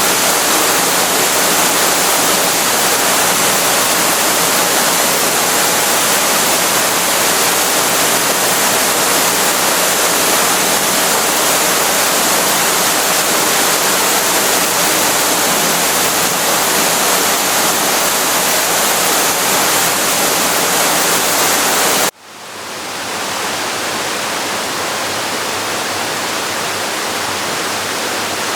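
Waterfall rushing steadily. About 22 s in it cuts off abruptly and a slightly quieter, thinner rush of falling water comes back in within a second.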